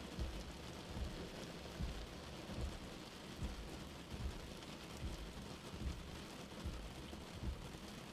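Steady rain on a car windscreen, with a soft low thud about every 0.8 seconds from windscreen wipers running on slow.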